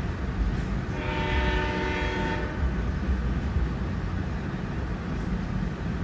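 Union Pacific freight train passing a road crossing: a low, steady rumble of cars rolling by, heard from inside a car. About a second in, a train horn sounds one held chord for about a second and a half.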